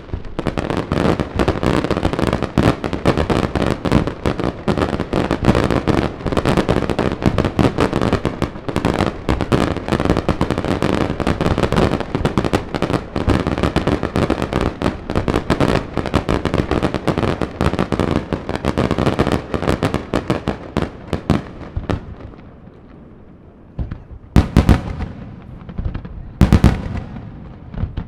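Daylight fireworks display: a dense, rapid barrage of loud bangs from salutes and crackers for about twenty seconds. It then thins out, and a few single heavy booms follow near the end.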